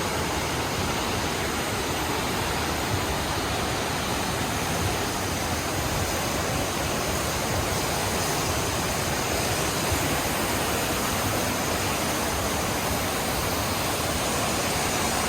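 Waterfall and fast river water rushing steadily through a narrow rock gorge, a dense, even wash of water noise that does not change.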